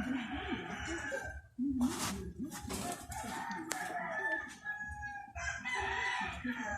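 Roosters crowing: a long, harsh crow at the start, a drawn-out one in the middle and another near the end.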